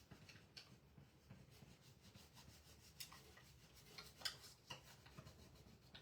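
Near silence: faint rubbing, with a few light ticks or taps about halfway through and near the end.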